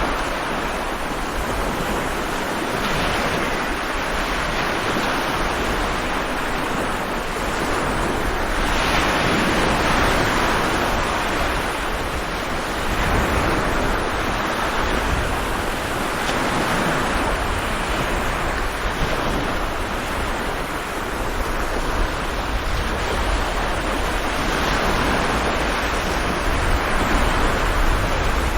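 Stormy sea: heavy waves breaking and surging in a continuous wash of surf, swelling and easing every few seconds over a deep rumble.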